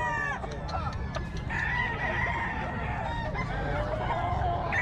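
Gamecocks crowing, with calls overlapping one another, and some clucking.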